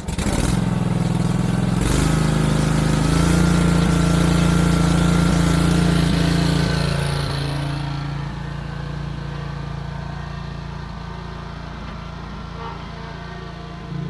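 Wright Stander stand-on mower's engine running just after start-up on a newly fitted carburettor, speeding up about two seconds in, then settling to a lower, steady speed from about seven seconds in.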